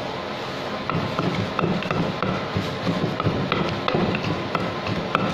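Wooden pestle pounding a wet mix of grilled catfish and herbs in a clay mortar. It makes irregular dull thuds with sharper knocks, about two or three a second, starting about a second in.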